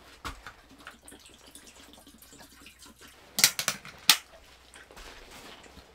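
Water poured from a plastic jug into a stainless steel dog bowl, then a dog lapping from the bowl. Loud sharp clinks come about three and a half and four seconds in.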